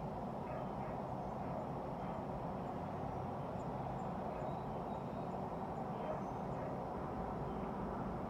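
Steady low ambient background noise, with a few faint, short high chirps in the middle.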